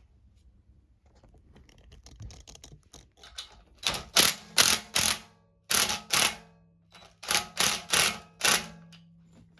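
Hand tool working the mounting hardware of a blower motor: a run of about ten short rasping strokes in groups of two or three, starting a few seconds in, over a faint low hum.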